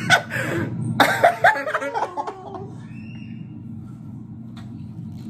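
A man laughing hard in short, cough-like bursts for about two and a half seconds, then only a low steady background hum.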